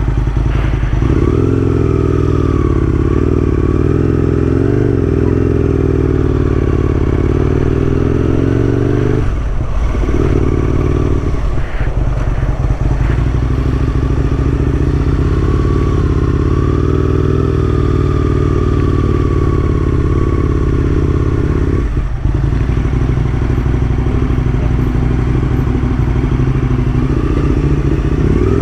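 Aprilia RSV1000 motorcycle's V-twin engine running steadily under way, its sound dropping out briefly about 9, 12 and 22 seconds in.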